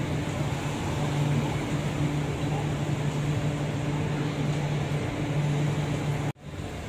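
Road traffic on a busy city street: a steady engine hum from passing cars and motorbikes under a wash of traffic noise. The sound cuts out for a moment near the end, then comes back a little quieter.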